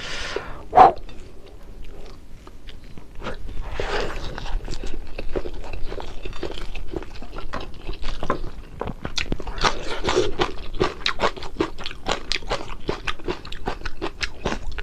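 Close-up chewing and biting of crispy fried fish, with dense, irregular crunches that grow busier after the first few seconds.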